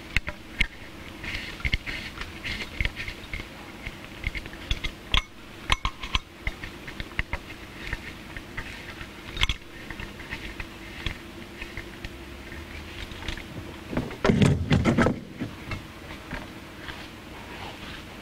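Scattered clicks and metal clinks from a spa heater assembly and its wiring being handled and fitted. There is a louder clatter of knocks lasting about a second, roughly three quarters of the way through, over a steady low hum.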